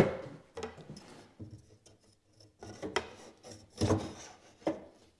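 Wooden parts of a ready-to-assemble cabinet knocking and rubbing together as the top braces are handled and fitted. There is a sharp knock at the start, then scattered lighter knocks and scraping, with louder knocks about three and four seconds in.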